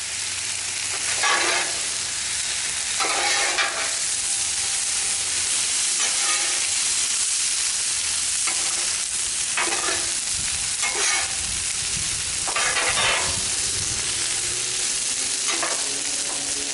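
Chicken, vegetables and noodles sizzling steadily on a Blackstone flat-top griddle, with short scraping strokes every second or two as the food is stirred and tossed with spatulas on the hot steel.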